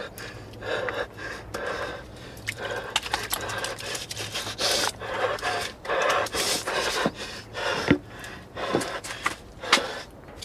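A man breathing hard in short, ragged gasps, with rubbing and scraping and small sharp knocks from handling things at a sink.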